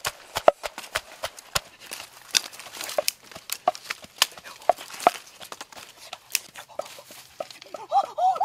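Wooden pestle pounding red chili peppers in a wooden mortar: a run of irregular knocks, closely spaced at first, then sparser. A voice starts near the end.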